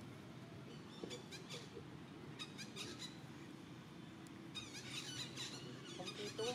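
Baby monkey giving high-pitched squeaks in several short bouts, ending in a rising squeal.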